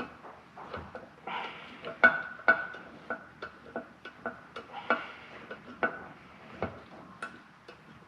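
Irregular metal-on-metal clicks and clinks of tools and valve parts being worked on a cast cylinder head, some with a short ring. Two sharp knocks about two seconds in are the loudest.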